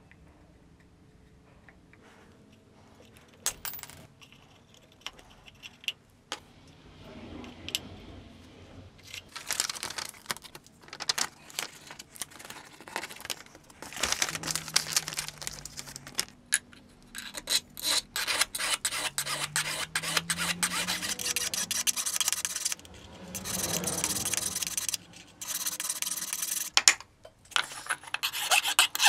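Hand file rasping on cast gold. The strokes are few and scattered at first, then become quick and nearly continuous, stopping briefly now and then.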